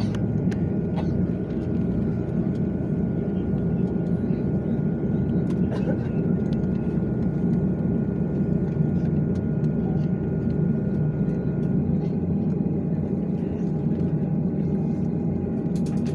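Jet airliner's engines running at low power, heard inside the passenger cabin as a steady low rumble with a faint steady whine that fades out near the end; level and pitch stay even, as when taxiing.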